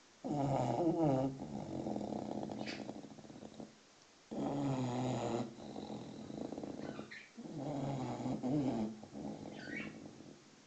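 A six-month-old English bulldog snoring in its sleep: three long snores about three seconds apart, each starting with a loud rattling tone and trailing off into a rough breath.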